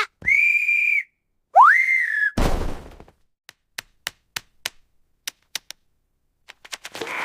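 Cartoon sound effects: a steady high whistle, then a whistle that slides up and bends down, followed by a thump and a run of short sharp clicks, about three a second. A hiss starts near the end.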